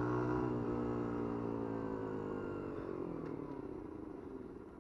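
A 50cc Dax-style motorcycle's single-cylinder engine running, its revs falling slowly and the sound fading as the bike slows down.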